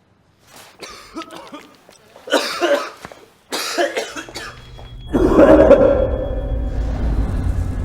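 A person coughing in several rough, irregular bursts over the first few seconds. About four seconds in, a low rumble sets in and swells sharply a second later, becoming the loudest sound.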